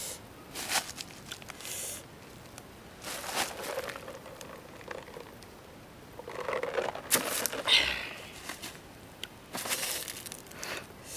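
Eating sounds of instant noodles being slurped and chewed, coming in short irregular bursts. About six seconds in, a plastic water bottle crinkles during a drink.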